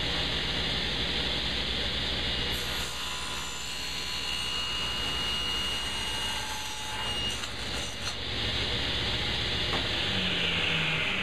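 Table saw running while its blade cuts through a board held upright in a tenon jig, cutting a tenon cheek. The cut rings for several seconds in the middle. Near the end the pitch falls as the blade winds down.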